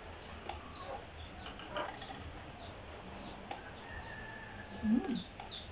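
Small birds chirping outside, many short high falling chirps repeating, with a brief low sound near the end.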